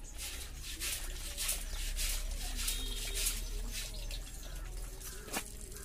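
Wet scrubbing and swishing strokes from hand washing with soap and water, about three a second, with a sharp knock near the end.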